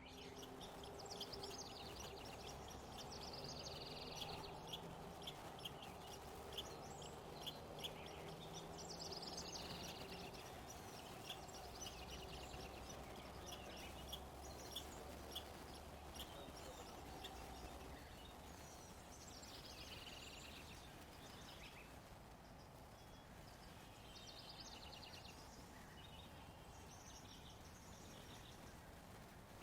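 Songbirds chirping and trilling in short scattered phrases, faint, over a steady low background hum.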